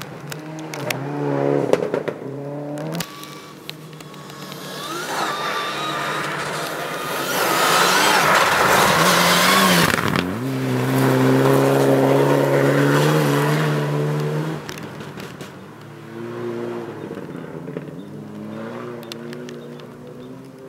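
Mitsubishi Lancer Evolution rally car's turbocharged four-cylinder engine passing at speed: the engine and a rush of noise build to a loud peak about eight to ten seconds in, the pitch drops as it goes by, then a strong steady engine note holds while it pulls away and fades.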